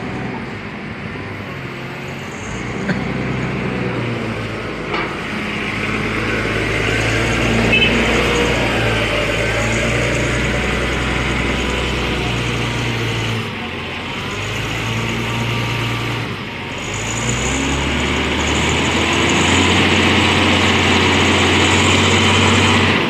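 Forklift engine running while the truck carries a heavy lathe on its forks, its speed rising and falling as it manoeuvres. The engine drops back twice about two-thirds of the way through, then runs higher near the end.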